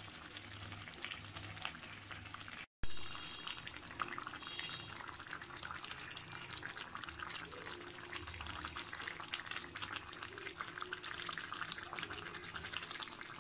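Beef pieces sizzling and bubbling in spiced oil and gravy in an iron karahi as they are braised with the masala: a steady fine crackle. The sound cuts out for an instant about three seconds in.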